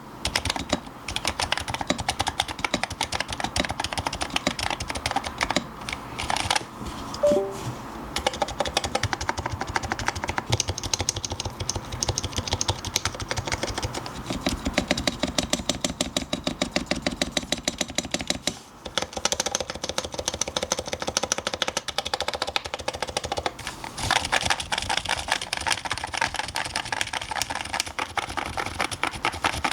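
Fast continuous typing on a custom electro-capacitive keyboard with Dynacaps switches, Topre 30 g parts and an aluminium top-mount plate: a dense run of keystroke clacks, many a second. A few brief pauses come, and the clacks change in tone after each.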